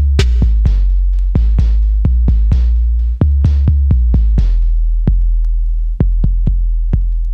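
Electronic Miami bass instrumental: drum-machine beat over a loud, sustained deep sub-bass. About two-thirds of the way through, the hi-hats drop out, leaving the bass and sparse drum hits about twice a second.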